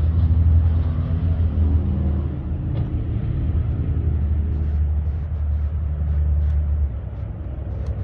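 A motor vehicle's engine running, a steady low rumble that eases off about seven seconds in.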